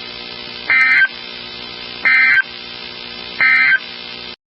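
Emergency Alert System end-of-message data tones over NOAA Weather Radio: three short, harsh digital bursts, each about a third of a second long and about a second and a half apart. They sound over steady radio hiss and hum, which cuts off abruptly near the end. The tones mark the end of the broadcast alert.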